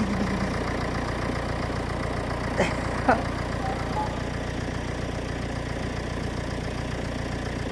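Young Kangal puppies giving two short, sharp yelps about two and a half and three seconds in, with a faint whimper soon after, over a steady low hum like an idling engine.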